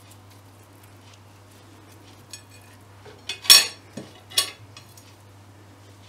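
Flat metal kebab skewers clattering against a ceramic plate as they are set down: one loud clank about three and a half seconds in and a smaller one about a second later, with faint handling clicks before.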